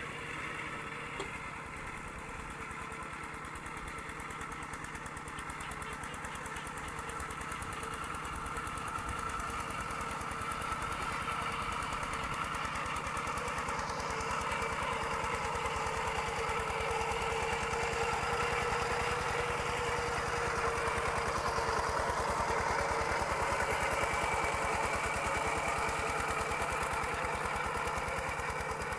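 Kubota RT120 single-cylinder diesel engine of a two-wheel walking tractor running steadily under load, pulling cage wheels through wet paddy mud. Its fast, even chugging grows gradually louder over the first half.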